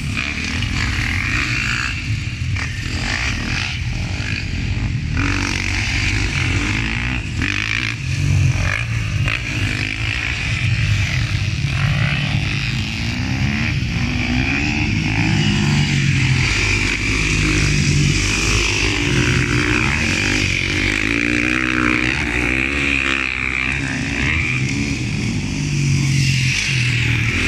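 Several motocross bikes on the track, their engines revving up and dropping back again and again as the riders accelerate, shift and brake through corners and jumps.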